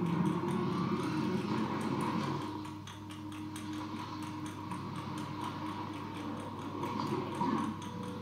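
A film's soundtrack played back by an Amiga 1200 as 8-bit, 16 kHz mono audio through speakers, with a fast, even ticking running under it.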